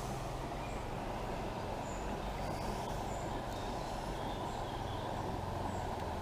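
Small trout stream's water rushing steadily over shallows, with a few faint high bird chirps.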